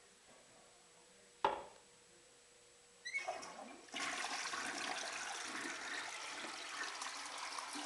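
Crane Galaxy toilet flushing: a single sharp clack about one and a half seconds in, then the flush starting about three seconds in and swelling a second later into a steady rush of water through the bowl.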